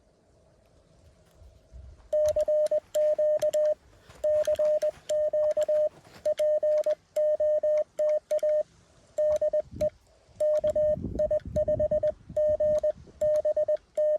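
Morse code (CW) tone from a Mountain Topper QRP radio, a single steady pitch keyed on and off in dits and dahs. It starts about two seconds in, after a faint steady tone at the same pitch, with sharp clicks at the edges of each element.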